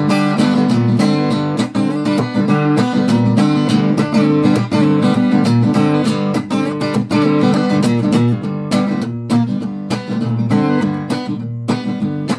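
Acoustic guitar playing an instrumental blues break: fast picked notes over a steady, repeating low bass line.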